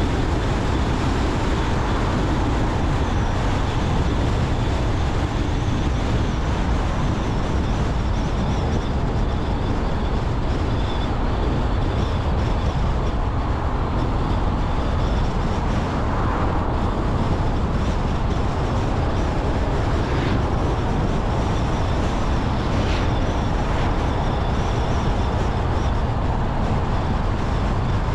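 Steady road noise of a car driving at a constant pace: tyre rumble and engine hum, heaviest in the low end, with a faint steady high whine over it.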